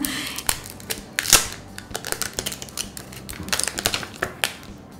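Protective plastic film being peeled off a Samsung Galaxy Z Flip 3's screen, giving irregular crackles and clicks, with one louder crackle about a second in and a quick run of them near the end.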